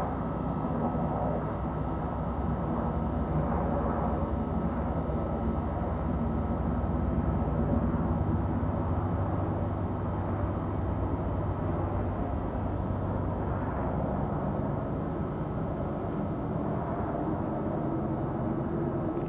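Boeing AH-64 Apache twin-turboshaft attack helicopter flying over, a steady low rotor and engine sound that is loudest about halfway through.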